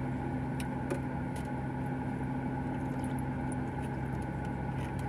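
Steady low hum of a car idling, heard from inside the cabin, with a few faint clicks in the first second or so.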